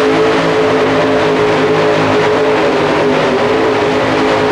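Super modified Chevy S10 pulling truck's engine running hard at full load, holding one steady high pitch as it drags the pulling sled down the track.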